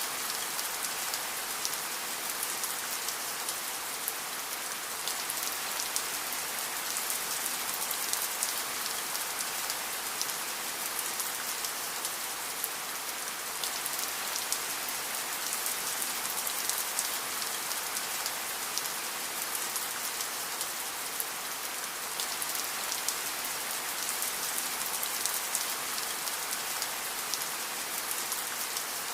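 Steady rain falling: an even hiss with many fine, sharp drop ticks, unchanging throughout.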